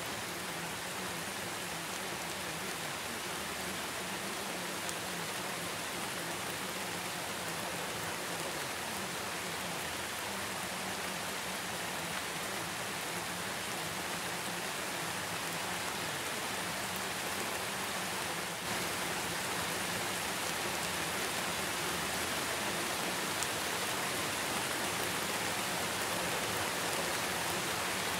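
Steady rain sound: an even hiss with no breaks, stepping up slightly in level about two-thirds of the way through.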